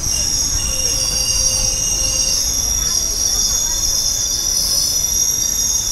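Passenger train wheels squealing on the rails: several steady high-pitched tones held over the low rumble of the running coach.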